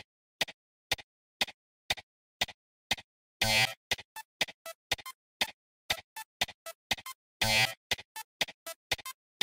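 Background music made of short, sharp beats, about two a second at first and then quicker, with a longer, louder hit about three and a half seconds in and another about four seconds later.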